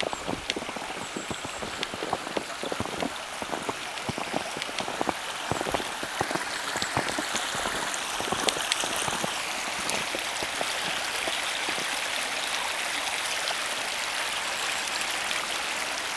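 Footsteps crunching through snow, many irregular crackling clicks, giving way about halfway through to a steady rushing hiss.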